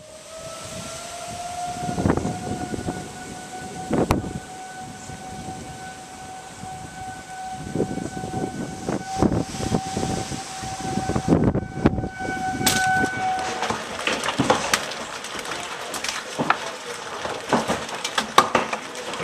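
An outdoor warning siren sounds one steady tone, which stops after about thirteen seconds. Under it, hailstones knock and clatter against the house, thickening into a dense rattle once the siren has stopped.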